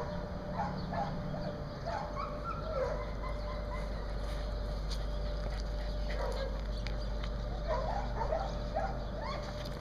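Dogs barking and yipping in short clusters of calls, over a steady low rumble.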